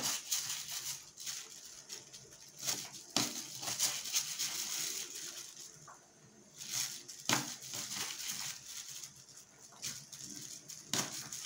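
Kitchen knife sawing crosswise through a salted herring to cut it into portion pieces: scraping and crunching as the blade goes through the fish, with a few sharper knocks of the blade on the surface beneath.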